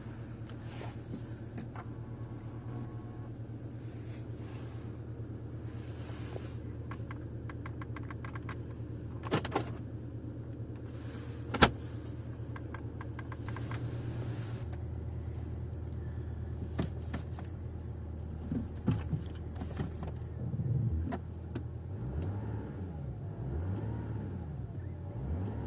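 Audi A6 3.0 TDI V6 diesel engine idling steadily after a cold start, with a few sharp clicks or knocks, the loudest about halfway through. Sounds gliding up and down in pitch come in over the last few seconds.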